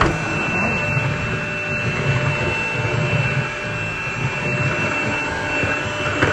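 Cordless vacuum cleaner running steadily, a constant high motor whine over the rushing suction noise.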